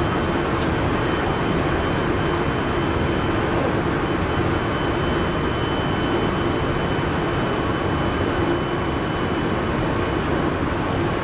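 JR Central 373 series electric multiple unit heard from inside the train: a steady rolling rumble of wheels on rail with an even electrical hum over it.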